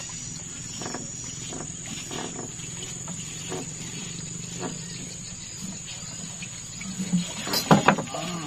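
Insects trilling steadily at one high pitch, with faint scattered taps. Near the end comes a short cluster of louder sounds that includes a brief pitched call.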